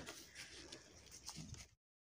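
Near silence: faint outdoor background with a few soft ticks, cutting off to complete silence near the end.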